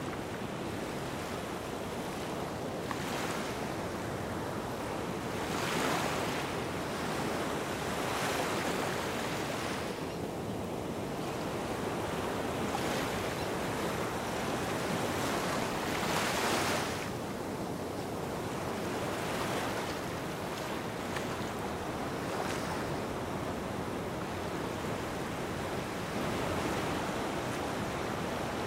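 Gentle waves washing onto a sandy beach. The wash is steady, with a soft surge every few seconds as each wave comes in.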